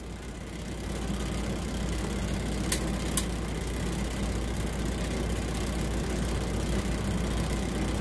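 Steady low background rumble with two light clicks a little under three seconds in, about half a second apart.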